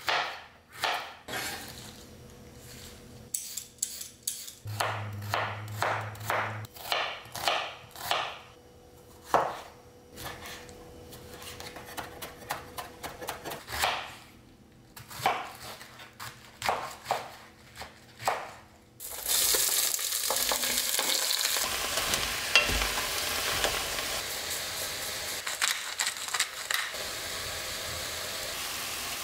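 Kitchen knife chopping vegetables on a wooden cutting board in irregular sharp strokes. About two-thirds of the way through, this gives way to a steady sizzle of chopped vegetables frying in a pot.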